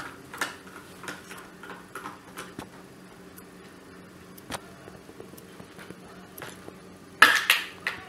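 Screwdriver turning out a screw in a dry iron's plastic housing: small clicks and scrapes for the first couple of seconds, then a few isolated taps. Near the end comes a short, louder clatter of plastic as the iron's handle is worked loose and lifted off.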